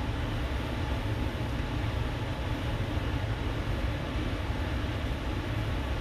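Evaporative swamp coolers running: a steady noise of fan and rushing air with a low rumble underneath, unchanging throughout.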